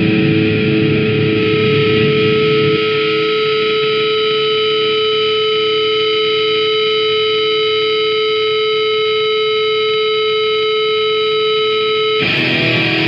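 Distorted electric guitar: after some strumming, one note is held and rings on steadily for about nine seconds, then the playing comes back in abruptly near the end.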